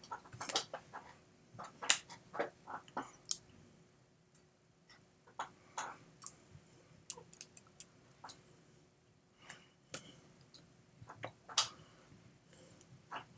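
Irregular light clicks and taps of a person signing: hands striking and brushing together, with mouth noises from lips and breath, over a faint steady hum.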